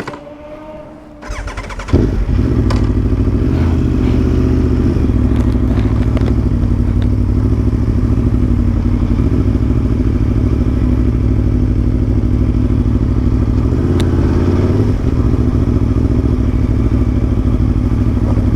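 Aprilia Tuono V4 1100 Factory motorcycle engine, a 1077 cc V4, started: a short crank about a second in, catching about two seconds in, then running steadily at low revs with small changes in pitch.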